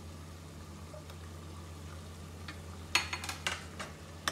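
Steel spoon scraping and clinking against the inside of a metal pressure cooker as onions, tomatoes and beef keema are stirred, a quick cluster of scrapes about three seconds in and one more near the end. Beneath it a faint sizzle of the frying mince and a steady low hum.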